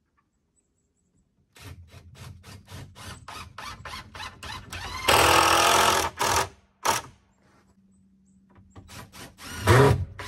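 Power drill driving screws into a wooden 2x4 frame. It opens with a stuttering run of short bursts, then runs at full speed for about a second around five seconds in, with more short bursts after. It drives again near the end.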